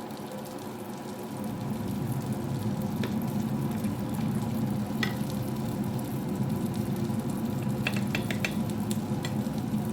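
Cheesy potato omelette sizzling steadily in an olive-oiled frying pan on low heat. A few sharp clicks of a utensil against the pan come through, with a quick cluster of them near the end.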